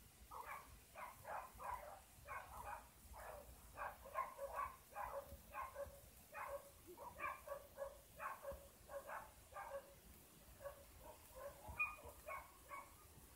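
A dog barking over and over, faint, about three short barks a second with hardly a pause.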